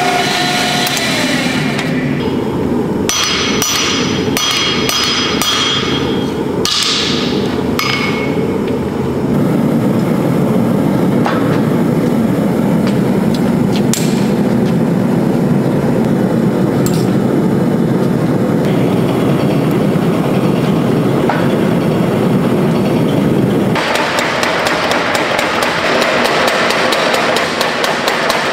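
Hammer blows on a red-hot Damascus steel billet being forged, some strikes ringing out a few seconds in. Near the end a mechanical power hammer pounds the billet in a fast, even rhythm.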